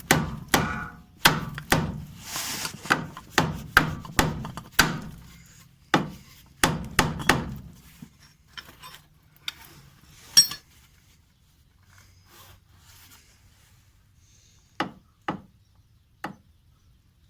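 Hammer blows on a Renault Logan's front anti-roll bar link, striking at about two a second to knock the stuck link out. The blows stop about seven seconds in, followed by a few scattered knocks, one sharp hit about ten seconds in and three more blows near the end.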